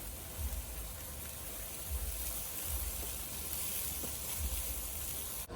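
Beef sizzling on a barbecue grill, a steady even hiss over an uneven low rumble.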